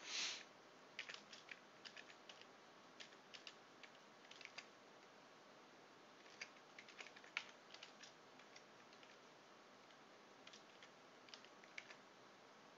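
Faint computer keyboard keystrokes in a few short runs with pauses between, and a brief soft puff of noise right at the start.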